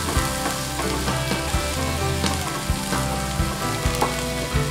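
Chopped onions sizzling as they fry in a nonstick pan, stirred with a wooden spatula that scrapes and clicks against the pan.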